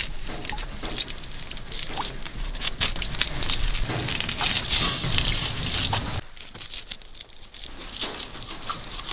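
Fibrous wild kudzu root being torn apart lengthwise by hand, its strands splitting with a dense, crackly tearing sound. About six seconds in the tearing gives way to sparser, crisper crackles as the root is bitten.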